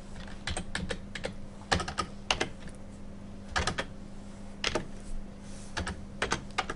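Typing on a computer keyboard: irregular short runs of key clicks with pauses between them, over a faint steady hum.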